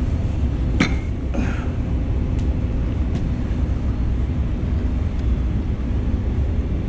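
Steady low hum of the reactive ion etcher's vacuum pump running, with a single sharp clunk about a second in as the etch chamber's lid is shut.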